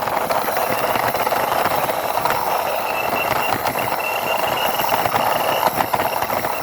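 Toy cement mixer truck's plastic wheels rolling along a surface as it is pushed by hand, a steady rolling rumble with a faint thin squeal in the middle.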